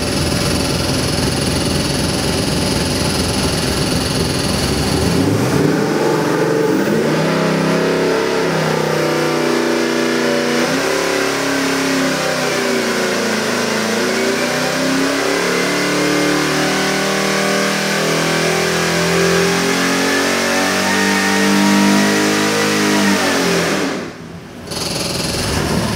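Whipple-supercharged 7.3-litre Ford Godzilla V8 running on an engine dyno, pulled through a full-load RPM sweep: after about five seconds of steady running the engine note swells and climbs in pitch as the revs rise past 4,000 rpm. About two seconds before the end the sound drops off sharply for a moment, then picks back up.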